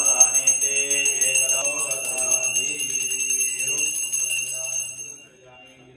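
Brass puja hand bell rung rapidly and continuously during the aarti lamp-waving, with a voice chanting beneath it; the ringing stops about five seconds in.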